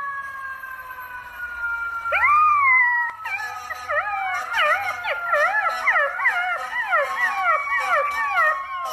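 A puppy howling, with its head raised: one rising-and-falling howl about two seconds in, then a quick run of short wavering howls, two or three a second. Under it runs a long steady tone that slowly falls in pitch.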